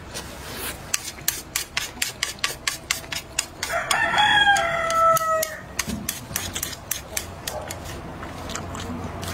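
Close-up eating sounds, rapid chewing and mouth clicks, with a rooster crowing once about four seconds in. The crow is a single call of about a second and a half that rises and then falls away at the end.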